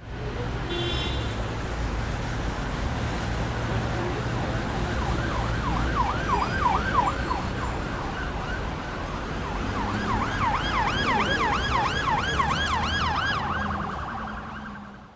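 Emergency vehicle siren in a fast yelping sweep, about three rises and falls a second, heard twice over a steady rumble of road traffic.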